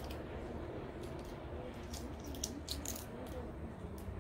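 Shell of a boiled balut duck egg being peeled by hand: a handful of light, sharp crackling clicks as pieces of shell break away, over a steady low hum.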